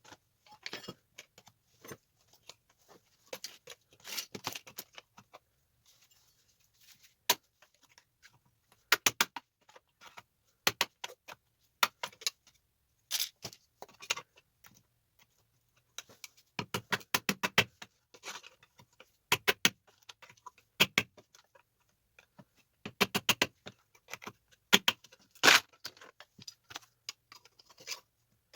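Sharp metallic clicks and clattering taps as tactile switches are pried and snapped off circuit boards with hand tools. They come in irregular bursts of quick strokes with short pauses between them.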